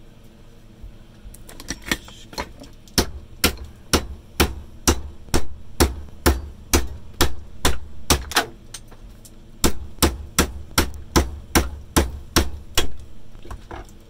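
Hammer blows striking a Henry vacuum cleaner's motor to smash it apart: a steady run of sharp knocks, about two a second, with a short pause about two-thirds of the way through.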